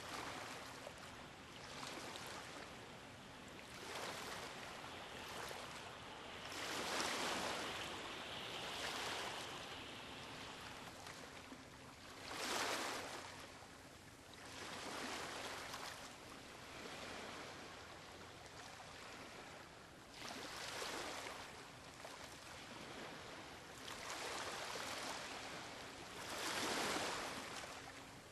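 A soft rushing noise that swells and fades every two to three seconds, over a faint steady low hum.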